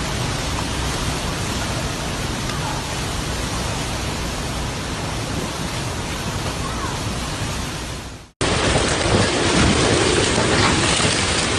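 Typhoon wind and driving rain: a loud, steady rushing noise. About eight seconds in it cuts abruptly to a louder stretch of the same storm noise.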